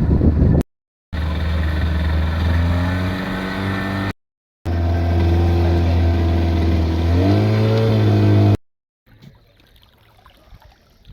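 An engine running at steady revs, which rise about seven seconds in. The sound is split into short segments by abrupt silent cuts and gives way to faint low sounds near the end.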